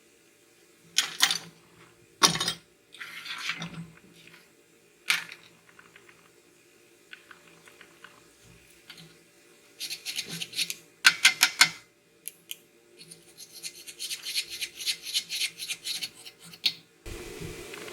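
Scraping on metal in quick runs of short back-and-forth strokes, as a wire brush scrubs welds on steel tubing, with a few single sharp knocks before them. A steady hiss starts near the end.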